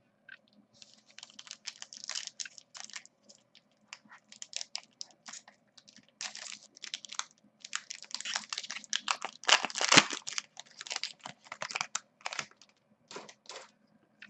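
Trading cards being handled: quick, irregular clicks and scrapes as cardboard cards are flicked and slid against one another, with a busier flurry about two-thirds of the way through.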